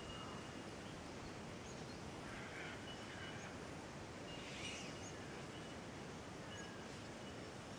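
Faint, steady outdoor background hiss with a few brief, distant bird calls, the clearest a little under five seconds in.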